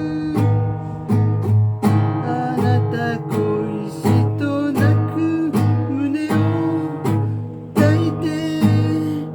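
Song music with guitar over a steady, regular bass beat.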